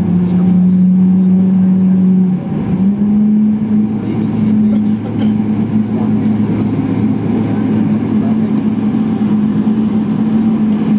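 Engine and airframe noise of a Boeing 777-300ER with GE90-115B engines, heard inside the cabin while taxiing: a steady low hum over a steady rush, the hum stepping up slightly in pitch about two and a half seconds in.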